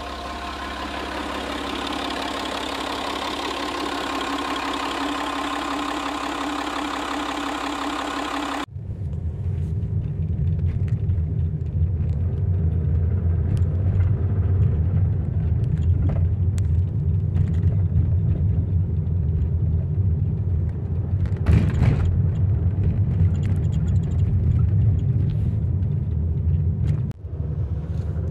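Citroën C6's 2.7 V6 HDi diesel engine running steadily, which the owner thinks has a subtle knocking from the injection, perhaps a slightly sticking injector. About nine seconds in it cuts abruptly to a deep, steady rumble with a few knocks, as of the car being driven.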